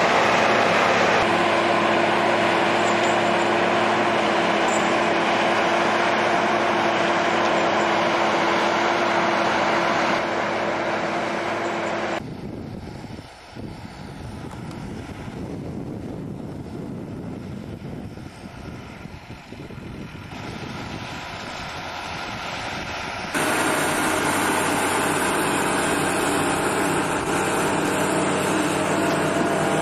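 Heavy tractor engine running steadily under load as it pulls a MeriPeat RT-600 TT peat-land leveller through peat, a steady hum over mechanical rumble. The sound changes abruptly to a quieter, rougher stretch about twelve seconds in, and back to the louder engine hum about eleven seconds later.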